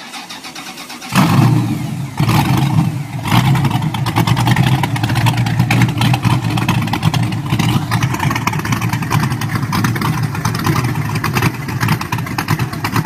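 V8 engine swapped into a Porsche 911, cranking on the starter for about a second, then catching with a jump in loudness. It is blipped twice, then settles into a steady, pulsing idle through the exhaust.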